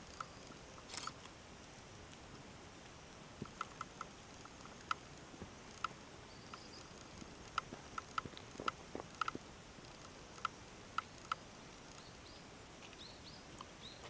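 Faint outdoor ambience with scattered small clicks and ticks at uneven intervals, and a few short chirps near the end.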